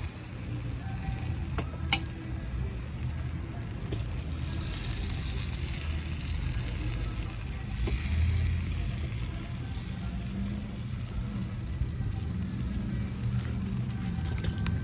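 Chicken sizzling on a barbecue grill over a steady low rumble, with a sharp click about two seconds in.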